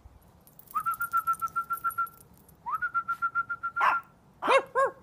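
Two fluttering whistles, each rising at the start and then held, trilling about eight times a second. Near the end, a quick run of high, sharp yaps from a chihuahua.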